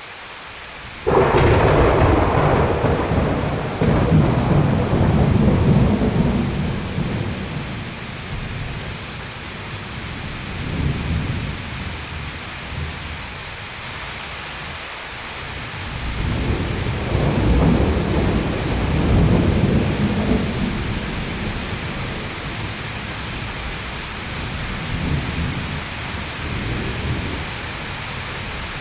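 Thunderstorm: a sudden loud thunderclap about a second in rolls on into a long low rumble, with further rolls of thunder about halfway through and again near the end, over steady rain.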